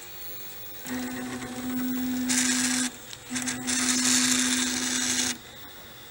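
Asterid Series 3D printer's stepper motors jogging the axes in two moves of about two seconds each, with a short pause between them. Each move is a steady low whine, joined partway through by a loud hiss.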